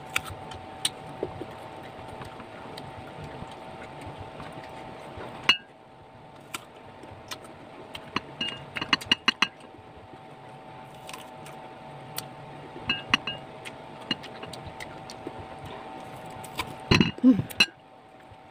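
Close-up eating of ripe mango dipped in a ceramic bowl: scattered sharp clicks and clinks come in clusters, one about halfway through, another later, and the loudest near the end, over a steady hum.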